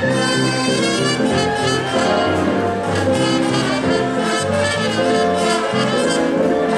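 Music with brass instruments: several held notes sounding together as chords, changing every so often.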